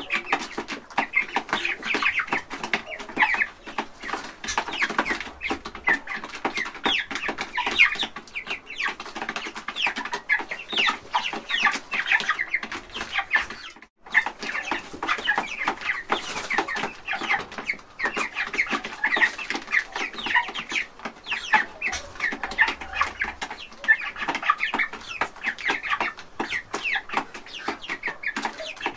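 A flock of young chickens and a chick calling without a break: many short, falling chirps overlapping one another, with a brief gap about halfway through.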